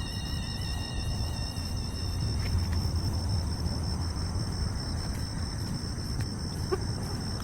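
Crickets and other night insects trilling steadily in several high pitches, over a low rumble.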